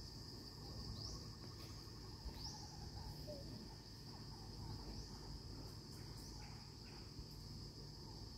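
Insects droning steadily, a high buzz with a short rising sweep repeating about once a second.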